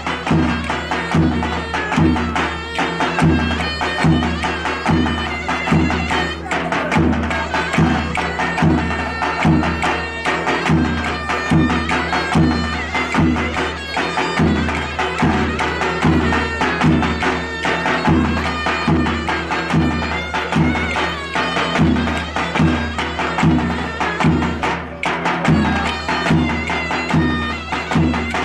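Turkish folk dance music played live on davul and zurna: a large double-headed drum keeps a steady beat of about two strokes a second under a shrill, reedy melody from the pipe.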